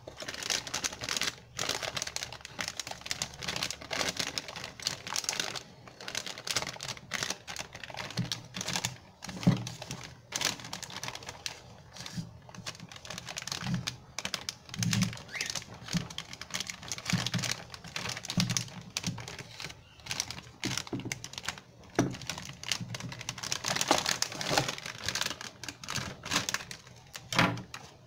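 Plastic packaging bags crinkling and rustling as parts are unwrapped and handled in a cardboard box, with irregular clicks and a few soft knocks.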